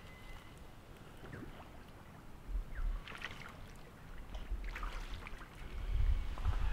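Wild boar wading and feeding in shallow swamp water, splashing and sloshing in irregular bouts about three seconds in and again near the end, with a few faint bird whistles.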